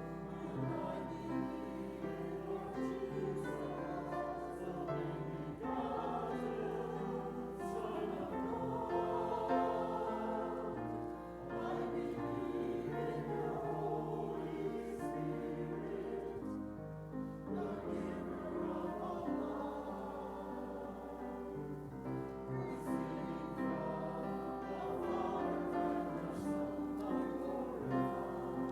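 Choir singing a sacred anthem with piano accompaniment.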